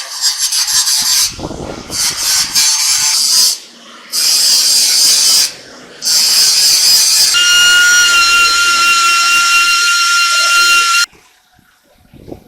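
A power tool working on metal, loud and hissing, in four bursts with short pauses between them. In the last and longest burst a steady high whine runs under the noise until it cuts off suddenly near the end.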